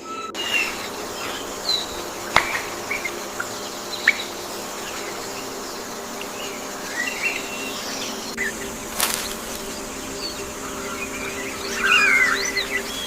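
Bird chirps and short calls scattered over a steady low buzzing hum, with a few sharp clicks; the chirping thickens into a brief busy burst near the end.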